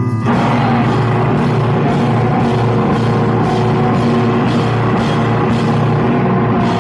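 Rock music: a full band with drum kit and guitar comes in at the start and plays a steady beat of about two hits a second.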